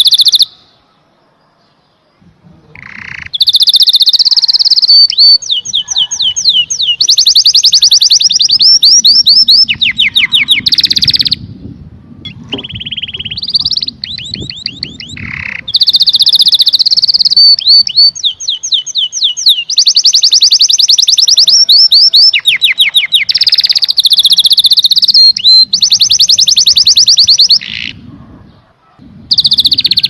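Domestic canary singing: long phrases of fast trills and rapidly repeated notes, with a pause of about two seconds near the start and a shorter one near the end.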